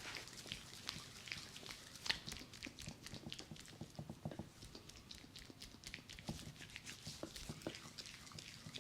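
Close-up head massage: hands rubbing and kneading the scalp and hair, giving a soft, irregular crackle of small clicks and rustles, with one sharper click about two seconds in.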